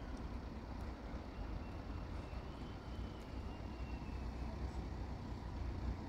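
Steady low outdoor rumble with no distinct events, as at a quiet level crossing while the barriers stay down.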